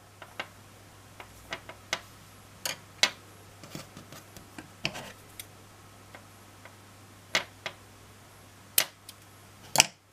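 Scattered small clicks and taps from hands working yarn, scissors snipping the yarn and tools handled on a wooden tabletop, with two sharper knocks near the end.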